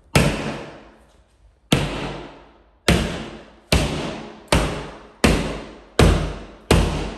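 A hammer knocking holes in a plasterboard partition wall: eight heavy blows, coming faster after the first few, each followed by a long echo in the bare room.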